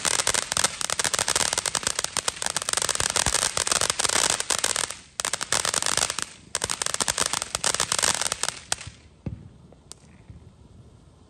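Ground fountain firework spraying sparks with a dense, rapid crackle. It breaks off briefly twice midway and drops away suddenly about nine seconds in.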